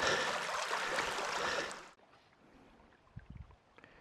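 Shallow creek water running, a steady hiss that cuts off abruptly about two seconds in; after it, near quiet with a few faint low knocks.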